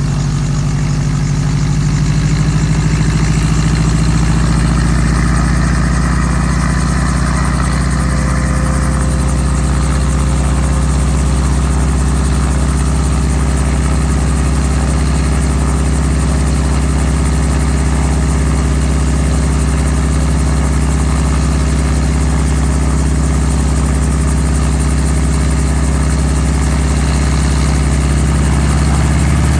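A small helicopter running on the ground, its engine droning steadily as the main rotor turns ahead of lift-off.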